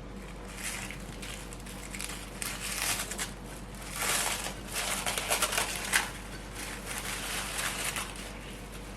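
Hands handling and rolling bread dough on a work surface while shaping a single-strand braid: irregular soft rustling and scraping, busiest midway, with one sharp tap near the end.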